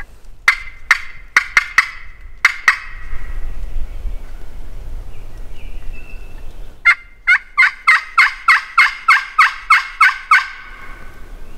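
Loud turkey calling on a hunter's call. It opens with about seven sharp, irregular notes, then, about seven seconds in, a long even run of about fourteen notes at roughly four a second.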